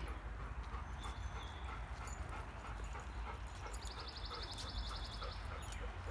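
Dog sounds from the playing dogs, small sounds repeating about three times a second over a steady low rumble. A short, rapid high trill comes in about four seconds in.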